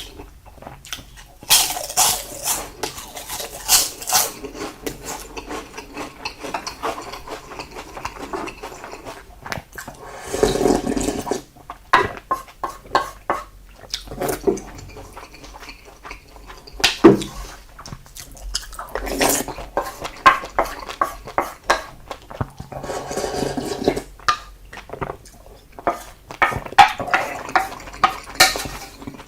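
A person eating salted seafood (jeotgal) with rice: close-up chewing and mouth sounds, with utensils clicking against the dishes in short irregular bursts.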